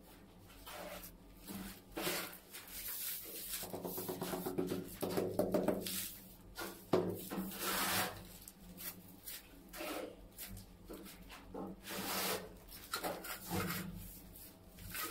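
Irregular scraping and rubbing strokes of hand tiling work on a wall spread with cement tile adhesive.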